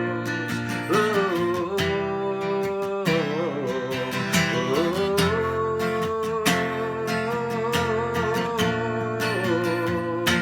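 Instrumental passage of a Spanish pop-rock song: strummed acoustic guitar in a steady rhythm over bass, with a sustained, gently wavering lead melody line.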